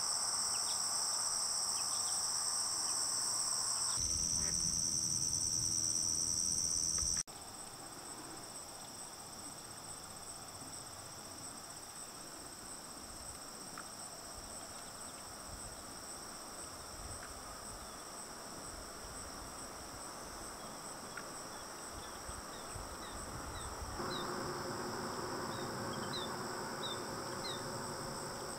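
A steady, high-pitched, continuous insect chorus. It drops abruptly in level about seven seconds in and rises again near the end.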